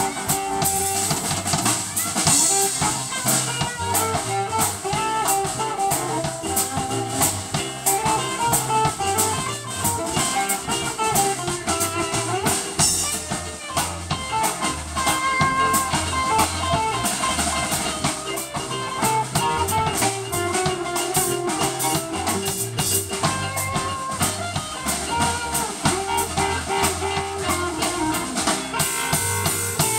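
Live blues band playing an instrumental passage: electric guitars over a drum kit and electric keyboard.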